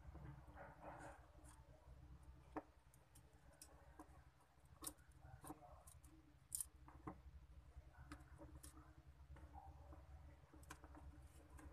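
Faint, scattered small clicks and taps as fingers arrange thin soldered wires inside a plastic headset ear cup, over a low steady hum.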